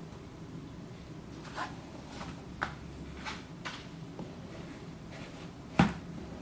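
Handling noise from a sneaker and its insole: soft scattered rustles and light taps, with one sharper knock near the end, over a faint steady room hum.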